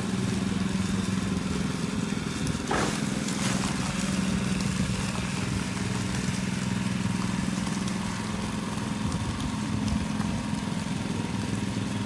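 Small petrol engine of a walk-behind concrete power trowel running steadily, with a brief scraping noise about three seconds in.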